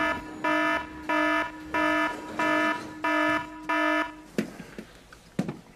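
Prison cell door buzzer sounding as the cell is unlocked: a harsh electronic beep repeated evenly, about seven beeps at roughly one and a half a second, then it stops. Two sharp knocks follow near the end.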